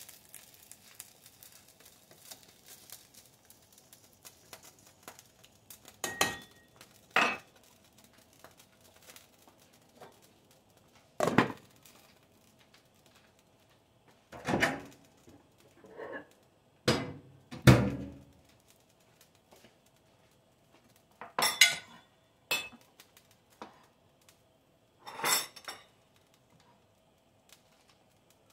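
Pots and utensils being handled at the stove: a glass lid put on a stainless steel stockpot, a metal ladle laid on a wooden cutting board and a plate set down, heard as about ten separate clanks and knocks with pauses between them.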